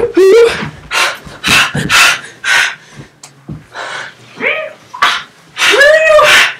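Young men making imitation animal noises while play-fighting: a rapid string of loud growls and yowls, about two a second, some rising and falling in pitch.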